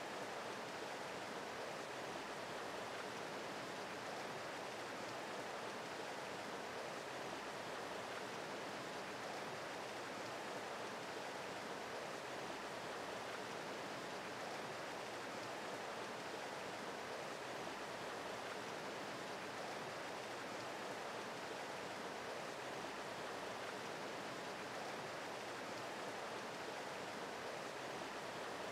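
Small mountain creek rushing steadily, an even, unbroken wash of running water.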